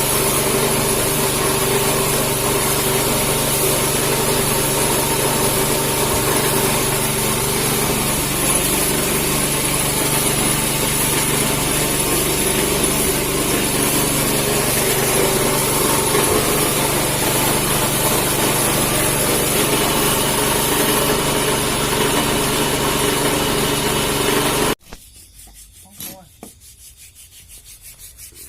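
A motorised tool runs steadily with a loud, even hiss over a low hum, then cuts off abruptly near the end. A few faint rubbing or scraping strokes follow.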